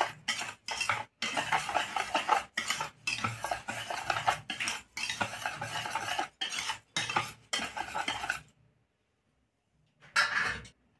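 Wire balloon whisk scraping round a steel bowl through a dry, gritty mix of semolina, flour and sugar, in quick uneven strokes. The whisking stops a little over eight seconds in; a short burst of similar scraping comes near the end.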